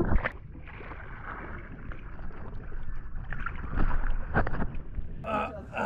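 Wind rumbling on the microphone over water and hull noise aboard a small fishing boat at sea, with a few light knocks.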